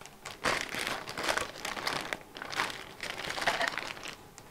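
Plastic packaging bag crinkling and rustling as a bagged part is lifted out and handled, in irregular rustles with a couple of brief pauses.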